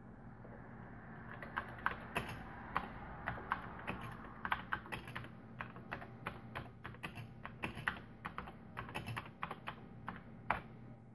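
Typing on a Commodore 64 keyboard: an uneven run of key clicks that starts about a second in and stops just before the end.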